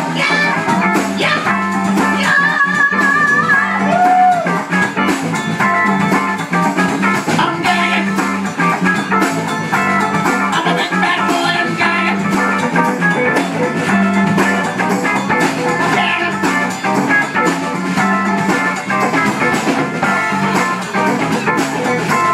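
Live band playing: two electric guitars, electric bass and drum kit, with a steady beat.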